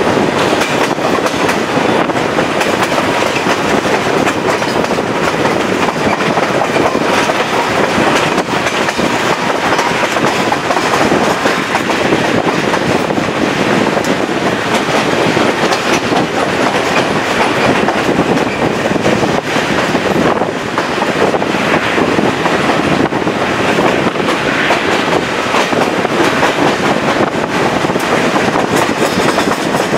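Chepe passenger train running along the track, heard from an open window of one of its cars. It is a loud, steady rumbling rush of wheels on rail, with many small irregular knocks all through.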